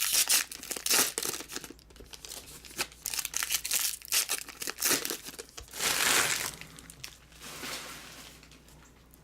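Plastic wrapping on trading cards being torn open and crumpled by hand: dense crackling and rustling, with a longer tear about six seconds in, then quieter toward the end.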